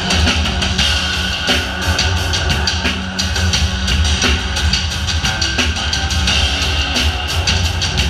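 Loud music with a drum kit playing fast, dense beats over heavy bass, with some guitar in the backing.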